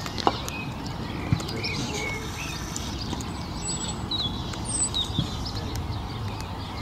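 Small birds chirping over steady open-air background noise, with a sharp knock just after the start and another about a second later.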